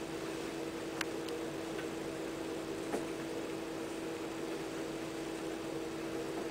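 Steady hum of a running machine, one constant tone over an even hiss, with a faint click about a second in and another about three seconds in.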